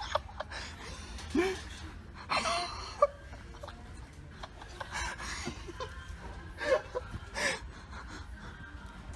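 Stifled snickering and hard breathing from people trying to stay quiet, in short scattered bursts, with a sharp knock about three seconds in over a steady low hum.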